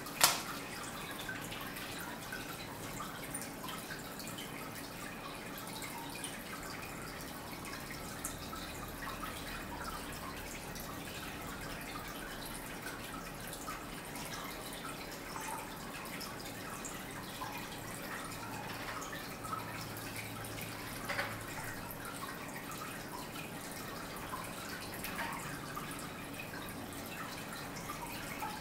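Faint steady trickle of water with scattered small drips. A single sharp click comes just after the start.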